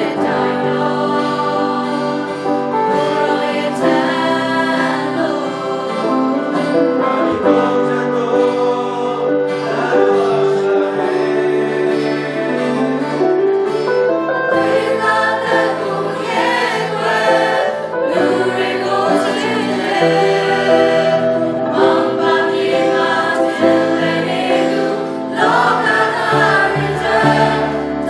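A group of voices singing a Christian hymn with instrumental accompaniment.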